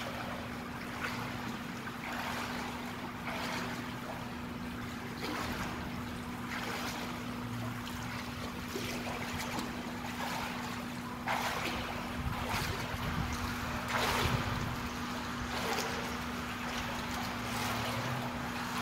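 Water splashing and lapping as a swimmer kicks and strokes on her back in a pool, with soft splashes about once a second, a little louder in the last third, over a steady low hum.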